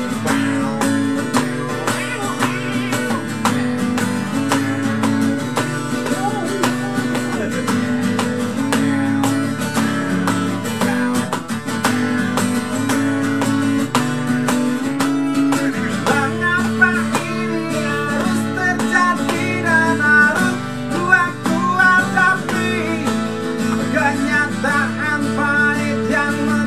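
Acoustic guitar strummed steadily through a chord progression. From about halfway a wordless vocal melody runs over it.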